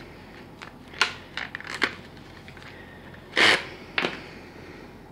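Handling noise as an M90 steel spring is pulled out of an airsoft rifle's stock tube: light clicks and knocks of plastic and metal parts about a second in, then one louder, brief scraping rattle about three and a half seconds in, and a last click.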